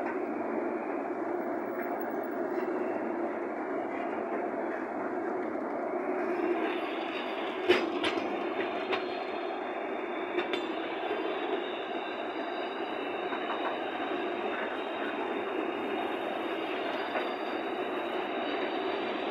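Freight train hopper wagons rolling past, a steady rumble of wheels on the rails, with one sharp clank about eight seconds in and two lighter ones over the next few seconds.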